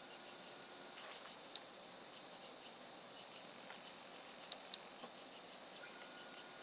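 Wood fire burning in a stainless-steel mesh fire pit, with a steady faint hiss and sharp pops from the burning wood: one about a second and a half in, then two close together near the end.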